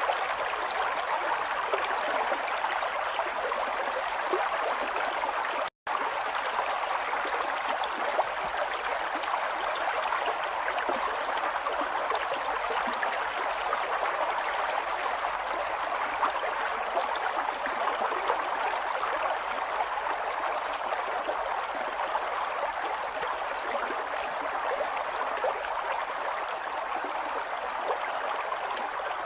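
Flowing water running steadily in an even rush, with a momentary gap of silence about six seconds in.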